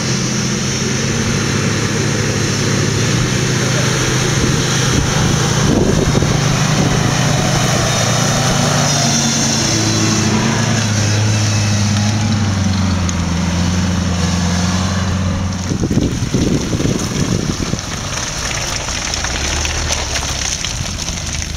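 Off-road 4x4's engine running under load, its pitch rising and falling as it is revved. About sixteen seconds in, the engine note drops away and rough, thumping noise follows.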